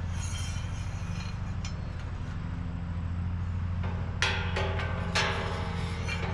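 Metal hardware clinking and rattling: a few sharp clinks near the start, then a louder cluster of ringing clanks about four seconds in, over a steady low hum.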